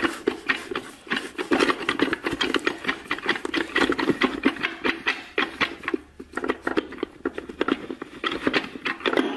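Fast metallic clicking and rattling as the forward drum of a 4L80E automatic transmission is twisted back and forth inside the case to seat it, its parts chattering against the clutch splines. There is a brief lull about six seconds in.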